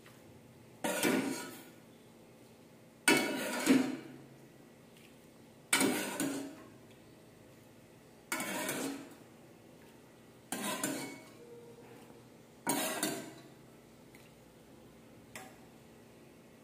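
A metal ladle clanks and scrapes against an aluminium cooking pot and a ceramic bowl as soup is ladled out. There are about seven strikes, one every two seconds or so, and each rings briefly.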